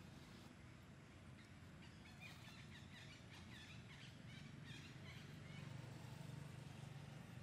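Faint ambience: a quick run of high, short chirping animal calls starts about a second and a half in and lasts a few seconds, over a low steady rumble that swells near the end.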